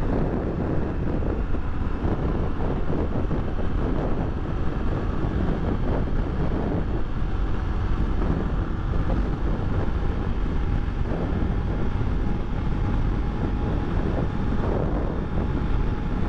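Steady wind rush over the microphone of a Honda XRE300 motorcycle at highway speed, with its single-cylinder engine running underneath.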